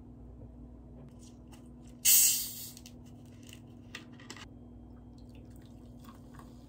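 A plastic bottle of Coca-Cola twisted open about two seconds in, with a short, loud hiss of escaping gas that fades within about half a second. A couple of faint clicks follow, and near the end the cola starts pouring into a cup.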